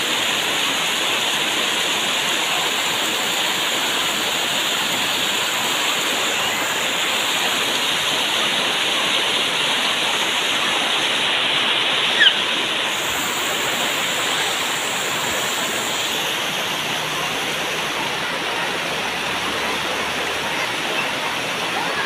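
Steady rush of shallow water cascading over a broad sloping rock face at a waterfall, with one brief sharp sound about halfway through.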